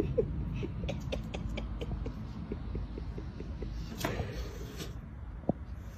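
A French bulldog gives short whines as it paws up at a cat. A run of soft quick clicks follows, then a brief noisy burst about four seconds in as the cat swipes down at the dog.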